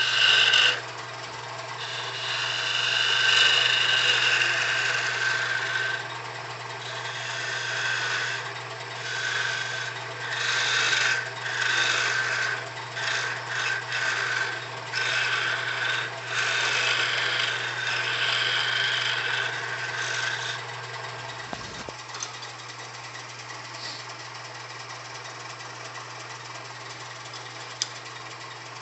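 Wood lathe running with a steady motor hum while a turning tool cuts a small hard maple spindle in a series of short scraping passes, each with a thin high whine in it. The cutting stops about two-thirds of the way through, leaving only the lathe's hum.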